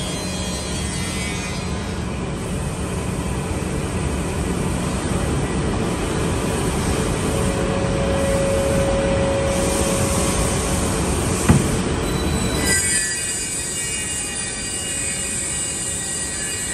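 ECT-66A double-end cutting and milling machine with track feed running, a steady loud mechanical rush with squealing, whining tones. A sharp knock sounds about eleven seconds in, and soon after the low rumble drops away, leaving higher whining tones.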